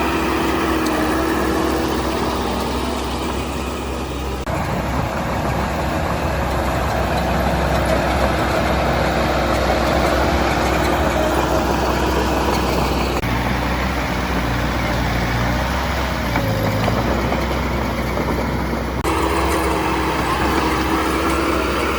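Diesel engine of heavy construction machinery running steadily, with the sound changing abruptly about four seconds in and again near the end.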